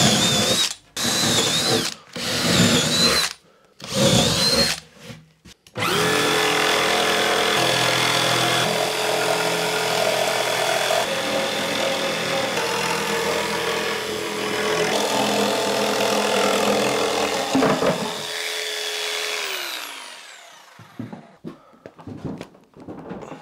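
A cordless drill bores through OSB board in four short bursts, each with a high whine. A jigsaw then cuts a piece out of the board, running steadily for about thirteen seconds before it winds down. A few faint knocks follow near the end.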